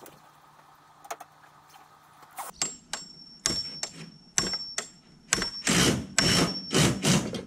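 Hand tools clicking and clanking on metal while copper tubing is readied for flaring, ending in a run of about five loud, short scraping strokes.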